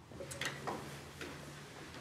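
Room tone with a steady low hum and a few faint clicks and taps in the first second and a half.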